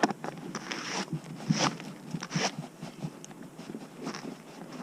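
Irregular rustling, scraping and sharp clicks of hands handling equipment, with a few distinct clicks about a second and a half, two and a half and four seconds in.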